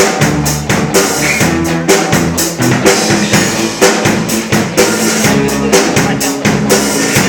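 Rock band playing an instrumental passage between sung verses: a drum kit with bass drum and snare keeps a steady beat under sustained bass and guitar notes.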